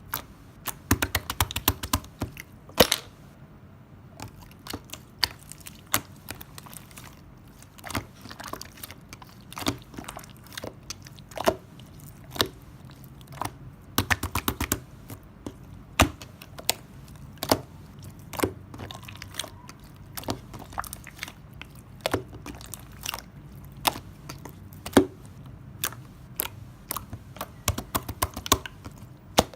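White Elmer's glue slime being worked by hand, giving irregular sharp clicks and pops, sometimes in quick clusters.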